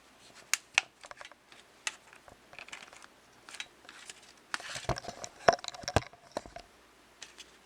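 Small magnetic metal pieces clicking and snapping together while being handled and fitted back into a box, with scattered taps and a busier run of sharp clicks about five to six seconds in.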